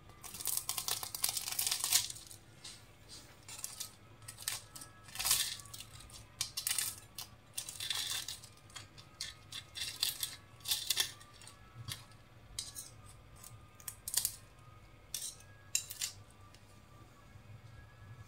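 Knife and fork breaking into the crisp, layered crust of a deep-fried qeema kachori on a plate: irregular bursts of crackling and crunching, with light clicks of metal cutlery against the plate. The sound is heaviest in the first two seconds and comes in short bursts after that.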